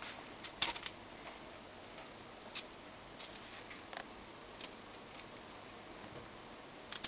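Scattered light taps and clicks as zucchini sticks are set down by hand in a parchment-lined baking tray, a few irregular ones over a faint steady hiss.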